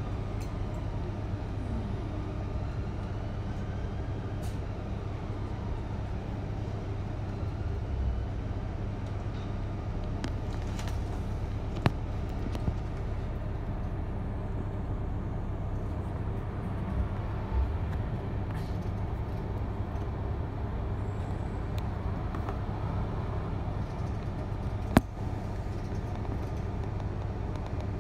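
Steady low engine hum and road noise of a double-decker bus driving, heard from inside on the upper deck. Two sharp clicks or rattles come about 12 and 25 seconds in, the second the loudest.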